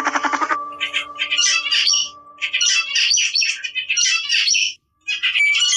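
Runs of high-pitched, bird-like squawking calls that come in clusters, with a brief silent gap a little before the end; a faint held note of the background music lingers underneath.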